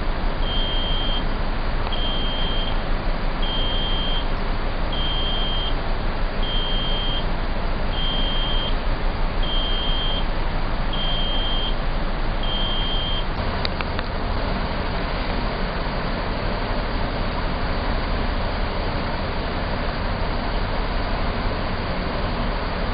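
Ship's deck crane machinery running with a steady drone, while its high-pitched warning beeper sounds about ten times, one beep every second and a half, and stops about halfway through.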